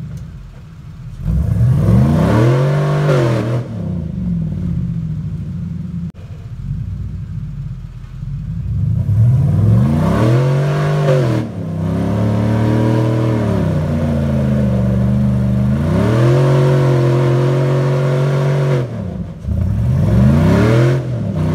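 Rock-crawling Jeep's engine revving under load as it climbs a steep rock ledge: several revs that rise and fall, a quieter stretch early on, then longer spells held at steady higher revs before a final rev near the end.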